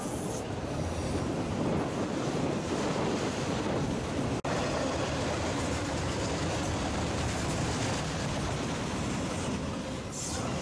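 Freight train of autorack cars rolling past close by: a steady rumble and rattle of steel wheels on the rails.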